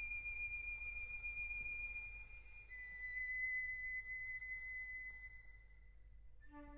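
Quiet instrumental background music: a single high held note steps down in pitch about two and a half seconds in, then fades away near the end.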